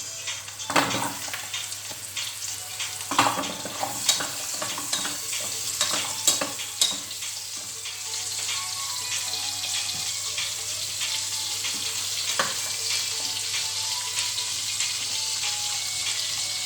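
Carrot pieces frying in hot oil in a pan: a steady sizzle, with several knocks and scrapes of a utensil stirring during the first half and once more later.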